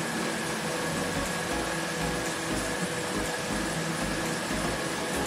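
Bosca 1000 W 12 V-to-230 V power inverter running, its cooling fan blowing steadily: a constant rush of air with a steady hum and a thin high tone over it.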